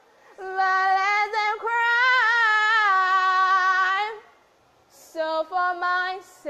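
A woman singing solo with no accompaniment: one long high note held for about three and a half seconds, its pitch wavering, then after a short pause a few short sung phrases near the end.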